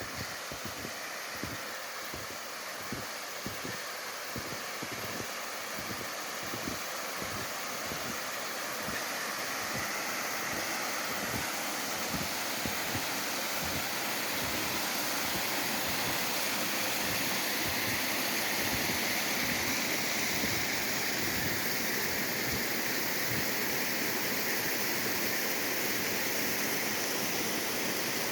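Waterfall's falling water rushing steadily, growing gradually louder.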